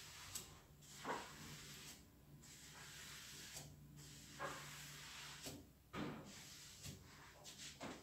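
Faint household cleaning sounds: a cloth wiping a tabletop, with a few light knocks as things are handled, over a low steady hum.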